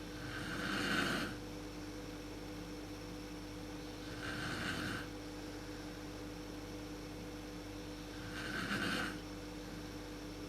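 A sleeping woman snoring: three rasping snores about a second long each, coming roughly every four seconds.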